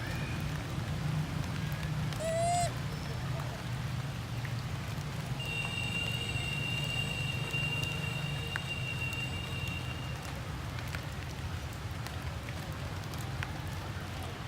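Steady patter of rain with scattered drips. About two seconds in there is a short pitched call that bends up and down, and from about 5 to 10 seconds a steady high whine.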